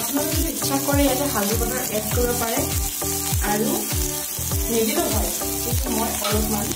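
Background music with a steady beat, about two beats a second, over a faint sizzle of grated spiny gourd frying in oil in an iron kadai.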